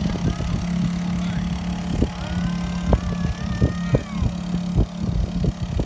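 A boat engine drones steadily, with irregular thumps and knocks over it.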